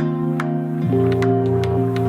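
Background music: sustained calm synth chords that change about a second in, over a soft regular beat.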